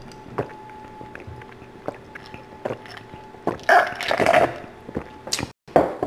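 Close-up eating: biting into and chewing a baked garlic knot chicken Alfredo bread ring, with small wet mouth clicks and a louder crunchy, noisy stretch about four seconds in.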